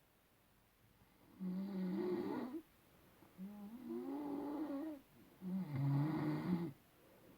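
A person snoring: three snores of about a second and a half each, with short pauses between them and a wavering, droning pitch.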